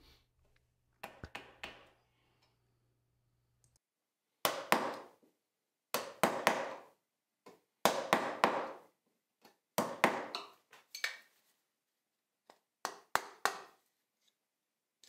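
A mallet striking a chisel in about six short bursts of two to four sharp blows each, chopping vertical cuts into the waste of a dovetail joint in a board.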